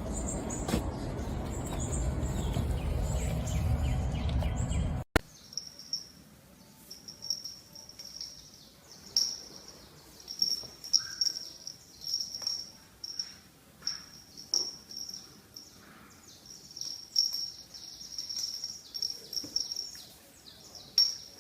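Loud, steady low noise that cuts off suddenly about five seconds in, followed by high, thin chirping calls repeated in short runs, with a few faint clicks.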